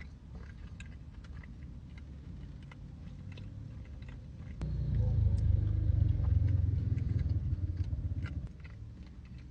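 Close-up chewing of a soft cupcake, with small wet mouth clicks. About halfway through, a louder low rumble comes in for nearly four seconds and then stops.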